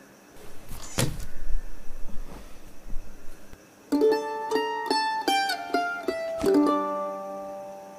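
A sharp wooden knock about a second in as a door panel is pushed open, followed by a few seconds of rustling noise. From about four seconds in, plucked-string background music plays a melody stepping downward.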